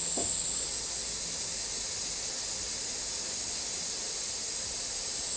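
Butane gas soldering iron hissing steadily while its tip heats a joint between a wire and a resistor lead.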